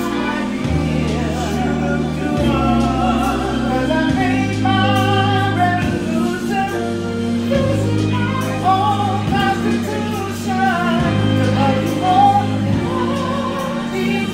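A man singing into a handheld microphone over a backing track played through a portable PA speaker. His held notes waver in a wide vibrato above sustained bass chords that change every couple of seconds.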